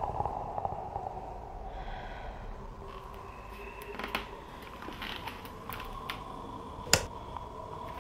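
Quiet room with scattered faint clicks and creaks, and one sharp knock about seven seconds in.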